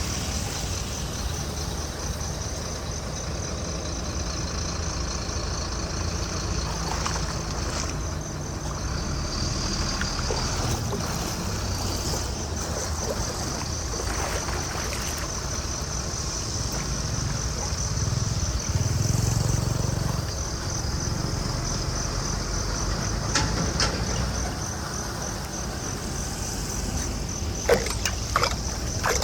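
Floodwater rushing steadily into a storm drain, with a fast, high insect trill running over it and a few sharp knocks near the end.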